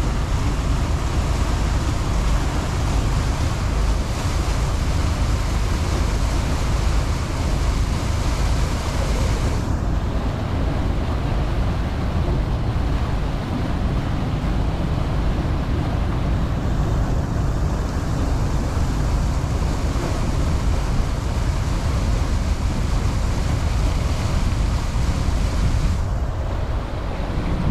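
A motorboat under way: a steady low rumble of the motor and rushing water, with wind buffeting the microphone.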